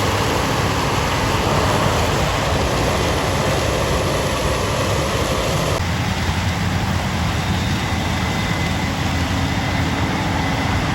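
Combine harvester engine running steadily with a low hum. About six seconds in, the higher, noisier part of the sound drops off while the low engine hum carries on.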